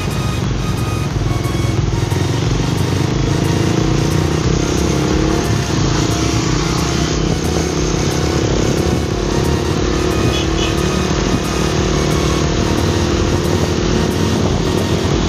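Motorcycle engine running steadily as the bike rides along in traffic at moderate speed.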